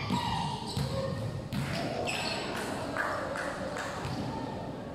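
Volleyballs being hit and bouncing on a wooden sports-hall floor: a string of sharp knocks, several a second, under players' voices.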